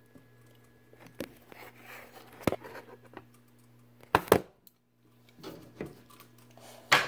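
Scattered knocks, clicks and rustling from a phone being handled and moved, over a steady low hum. The loudest is a double knock about four seconds in, followed by a brief moment of silence.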